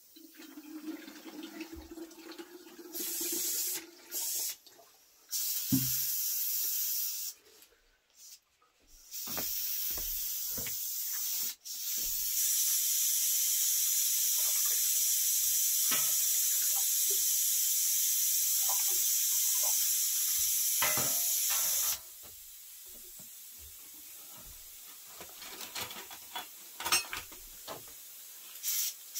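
Steam hissing out of an aluminium pressure cooker's valve as its pressure is let off: short spurts at first, then a loud steady hiss for about ten seconds that drops to a quieter hiss, with a few light metal knocks.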